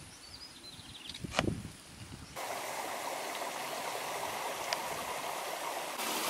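A small hill stream running, a steady rush of water that begins abruptly a little over two seconds in and gets louder near the end as water spills into a small pool. Before it there are quiet outdoor surroundings with one muffled bump about a second and a half in.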